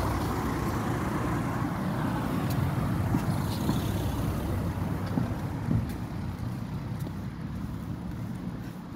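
A car driving past on the street; its low rumble fades away about halfway through.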